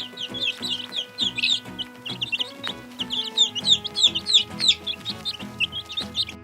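Chickens calling: many short, high calls overlapping one another throughout, over background music with held notes.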